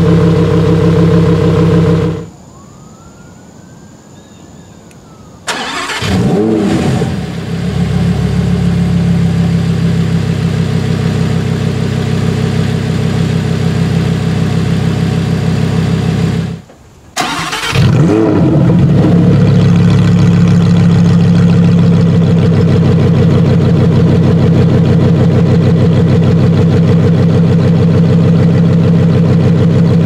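2018 Lamborghini Huracan Performante's 5.2-litre V10 idling, then shut off about two seconds in. It is started twice: about five seconds in and again just after seventeen seconds, each time with a sudden flare of revs that settles back to a steady idle.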